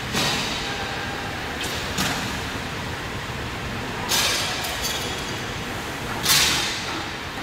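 Automatic CNC glass loading, cutting and breaking line running: a steady machinery noise, broken by four sudden hissing bursts about two seconds apart that each fade within half a second. The last burst is the loudest.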